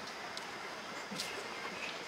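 Steady outdoor city background noise, with a few faint clicks, one about a second in.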